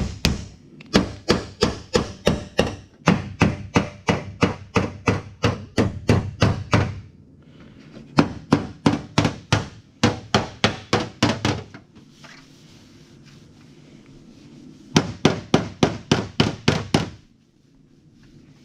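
Hammer blows on sheet metal, the kind of panel work done on a damaged car fender. The blows come in quick, even runs of about four a second, with short pauses between the runs, over a low steady hum.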